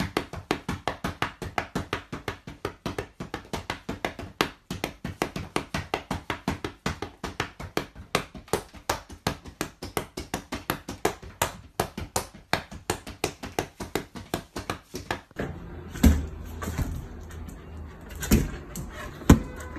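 Fast, even tapping or flapping, several strokes a second, as a grey object is shaken quickly in the hand at a cockatoo. It stops after about fifteen seconds, and a few dull thumps follow as a dog knocks a large balloon about.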